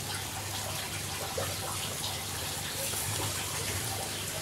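Turkey breast sizzling on a charcoal grill over hot coals: a steady hiss with a few faint crackles.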